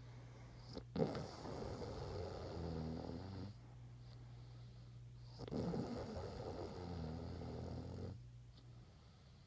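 A sleeping person snoring: two long snores a few seconds apart, the first starting with a sharp snort, over a steady low hum.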